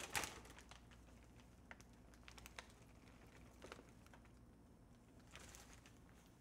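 Faint crinkling of a plastic bag of Korean pancake mix being handled and tipped into a plastic container: a few scattered soft ticks and a brief rustle about five seconds in. Otherwise near silence.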